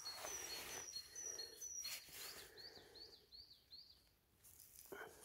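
A small songbird calling, a quick run of short high notes that rise and fall, about three or four a second. A hiss of noise fills the first two seconds or so.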